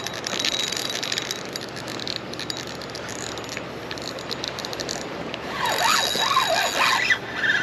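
Spinning reel being cranked to wind in line, its gears giving a fast, fine clicking. A louder sound with a wavering pitch comes in about six seconds in.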